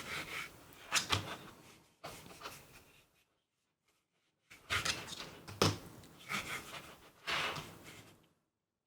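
Cleaning patch scrubbed over a polymer pistol frame, wiping it down with rubbing alcohol. Two spells of rubbing and scraping strokes, with a pause of about a second and a half between them.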